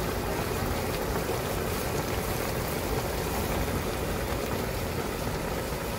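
Jjajang tteokbokki simmering in a wide pan, the thick black-bean sauce bubbling steadily.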